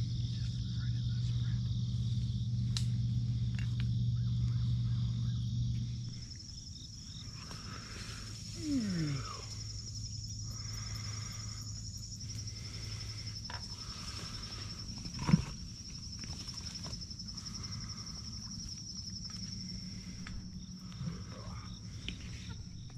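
Marsh ambience with insects trilling steadily at a high pitch. A low steady hum fills the first six seconds and then drops away. There is a brief falling call about nine seconds in and a single sharp knock about fifteen seconds in.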